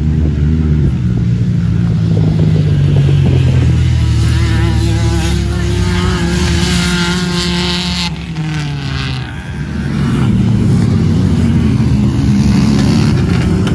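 A vehicle engine running hard under load, revving up and wavering in pitch for several seconds, easing off about nine seconds in, then picking up again.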